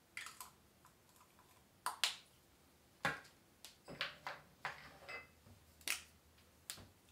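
About a dozen sharp clicks and light knocks at uneven intervals, typical of makeup cases and caps being opened, snapped shut and set down; one of them rings briefly.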